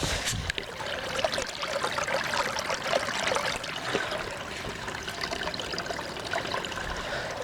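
Water running through a small dam, a steady splashing trickle.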